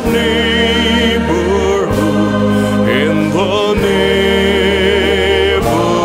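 Background music: a slow song in a passage between sung lines, with sustained chords that change about every two seconds.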